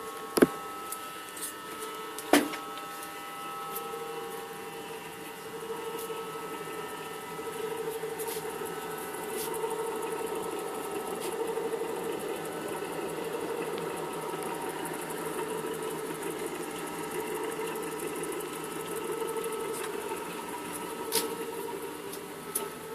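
Eerie droning hum inside a 1944 submarine: several steady tones over a wavering drone that swells from about four seconds in and eases near the end. Sharp clicks sound about half a second in, at about two seconds, and again near the end.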